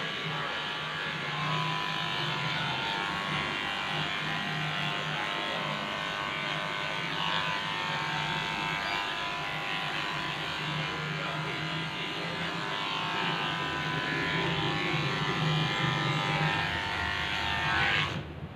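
Cordless electric dog clippers running with a steady buzzing hum while shaving a dog's coat, then switched off near the end.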